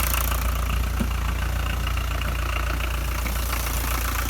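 Rover SD1 2400 SD Turbo's VM 2.4-litre four-cylinder turbodiesel idling steadily, freshly started on a cold night; it idles evenly now that its seized accelerator cable has been freed and lubricated.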